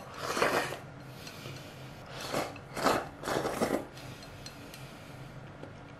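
A person slurping noodles from a bowl: one long slurp about half a second in, then three more in quick succession from about two to four seconds in.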